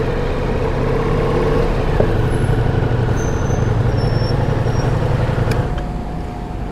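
Ducati Multistrada V4S's 1158 cc V4 engine idling steadily, its low hum easing a little near the end.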